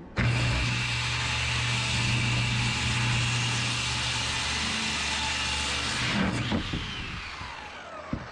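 Electric power saw running and cutting through a subfloor sheet, then spinning down with a falling whine over the last two seconds.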